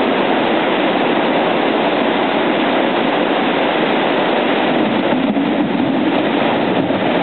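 Water rushing steadily over a low river weir, a loud even roar of white water.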